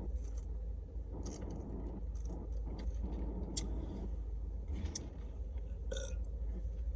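Steady low rumble of a parked car's idling engine heard from inside the cabin, with a few short, faint clicks scattered through it.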